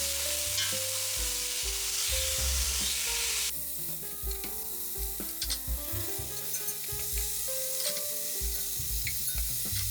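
Chicken pieces sizzling as they sear skin side down in hot oil in a heavy pot, with a few sharp pops. The sizzle thins a little about three and a half seconds in.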